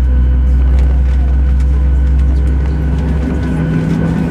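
Steady drone inside a Boeing 737-700's cabin: a loud low hum with faint steady whining tones above it, the low hum shifting about three seconds in.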